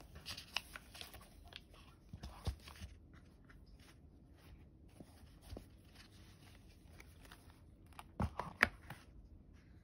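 Faint rustling and soft handling noises as a fabric dust bag and paper are unfolded and shifted inside a cardboard gift box. There are a few louder crinkles about two and a half seconds in and a short cluster of them near the end.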